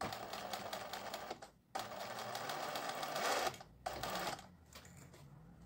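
Singer 20U semi-industrial zigzag sewing machine stitching a felt appliqué in three runs: about a second and a half of stitching, a brief stop, a longer run of about two seconds, then a short burst about four seconds in.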